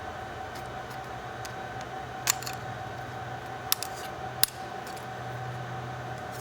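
Three short, sharp clicks of small hard parts being handled while a laptop's hard drive is taken out, the first about two seconds in and two more a little later, over a steady low hum.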